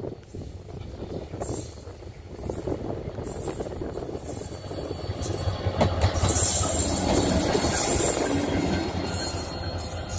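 GT22 diesel locomotive running light, approaching and passing close by: its engine and its wheels on the rails grow louder and are loudest in the second half. A few sharp clicks come from the wheels crossing rail joints.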